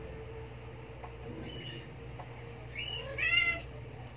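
Newborn kittens mewing: two short, high squeaks, then a louder mew about three seconds in, rising and falling in pitch. A steady low hum runs underneath.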